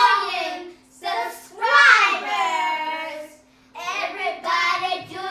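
Young girls singing playfully in three sung phrases with short breaks between them; the middle phrase has a long drawn-out note that falls in pitch.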